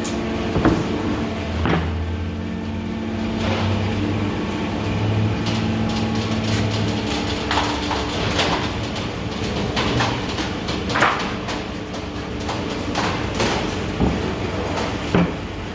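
Industrial machinery running with a steady hum, broken by irregular knocks and clanks, a dozen or so, the loudest about a second in, near eleven seconds and near the end.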